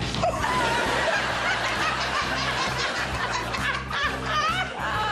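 Background music with a person laughing over it.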